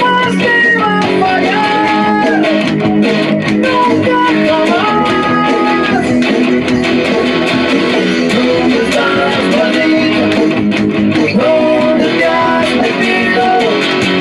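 Guitar music: strummed guitar under a melodic lead line that holds notes and slides between them.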